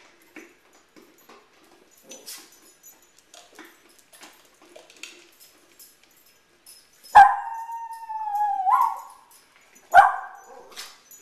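Small dog whining: one long whine that sags slightly in pitch and lifts at its end, then a second, shorter whine about three seconds later. Faint scattered clicks come before the first whine.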